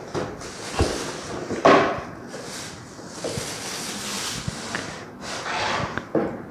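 Plastic bag crinkling and cardboard box flaps rustling and scraping as a small electric rice cooker is lifted out of its box and unwrapped. There are a couple of dull knocks in the first two seconds.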